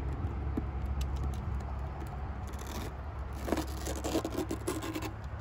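Scraping and rustling of hands pressing a Velcro strip onto rough tree bark and handling a thin plastic jar against the trunk, loudest from about three and a half seconds in, over a steady low rumble.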